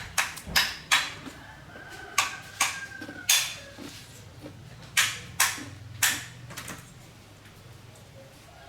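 A series of sharp knocks, about ten irregular strikes over several seconds, stopping about seven seconds in.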